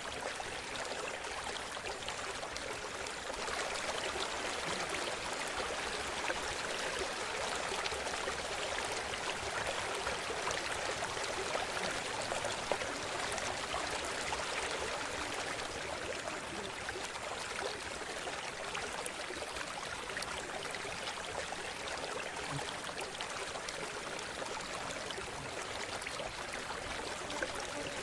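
Running river water: a steady, even rushing with no change throughout.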